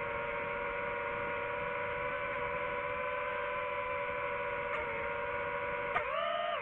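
DJI FPV drone's electric motors and propellers whining at a steady pitch, which dips and then rises near the end as the throttle changes.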